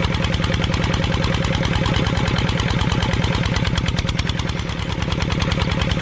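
Tractor engine running steadily with a fast, even knocking beat.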